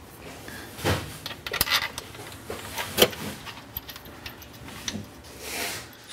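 Metal exhaust sections and their fittings being handled and positioned by hand, knocking and clinking a few times against each other and the car's underside, with rubbing and scraping in between.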